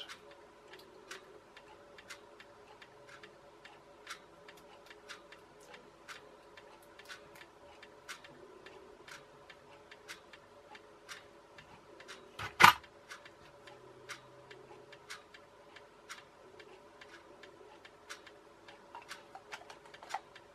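Steady, regular faint ticking throughout, with one sharp plastic click about twelve and a half seconds in, the loudest sound, as the small toothbrush motor is clipped back into its plastic holder.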